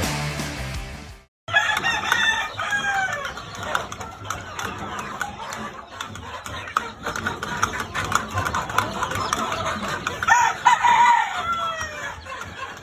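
Roosters crowing repeatedly, with chickens clucking and small clicks between the calls. The loudest crow comes near the end. Before that, a second of rock music cuts off abruptly.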